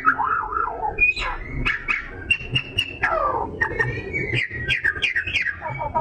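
Oriental magpie-robin (kacer) singing a fast, varied song of whistles, chatter and clicks. About two seconds in it holds a high note, then drops into a falling slide.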